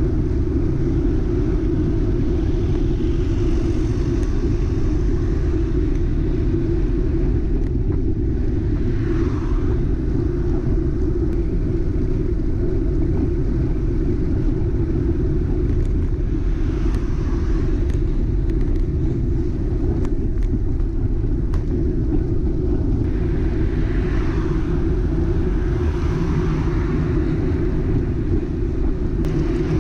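Steady wind and road rumble on a GoPro action camera mounted on a bicycle riding at about 25 km/h. Over it, cars pass close by, each a whoosh that swells and fades: about a third of the way in, near halfway, and again a few seconds before the end.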